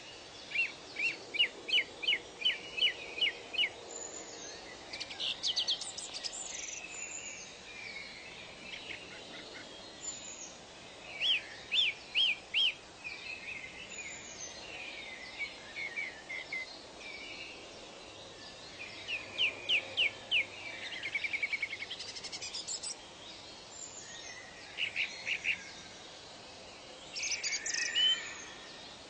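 Songbirds singing: one bird repeats a phrase of four to eight quick, evenly spaced high notes every few seconds, with softer chirps from other birds in between, over a soft steady hiss.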